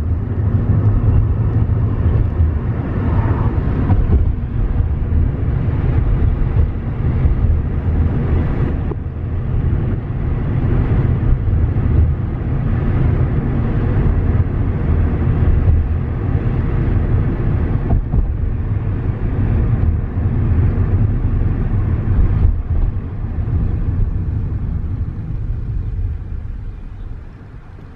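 Steady low rumble of a car driving, road and engine noise heard from inside the cabin. It starts abruptly and drops away near the end.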